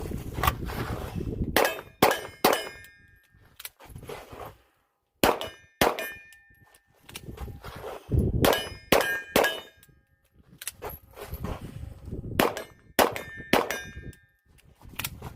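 Handgun shots striking steel targets, each hit ringing with a metallic clang. The shots come in groups of two or three, with pauses between the groups where the shooting stops for a misfire to be cleared.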